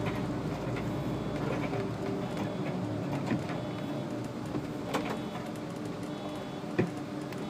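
SOR NB 12 City bus running steadily as it rolls slowly up to a stop, heard from the driver's cab. A few sharp clicks come through, the loudest near the end.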